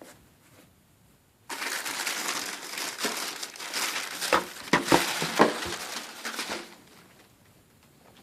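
Wrapping from a shoe box being handled and crumpled: a dense crinkling rustle that starts abruptly, with several sharp crackles in the middle, and stops a little over a second before the end.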